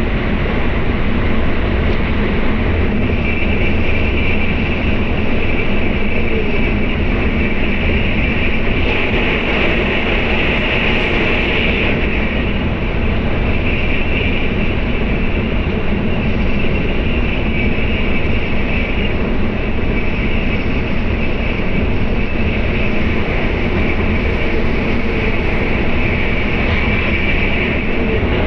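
Tokaido Shinkansen bullet train running at speed, heard from inside the passenger cabin as a steady rumble and rushing noise. A hissing note in it grows louder for a few seconds about nine seconds in, and again near the end.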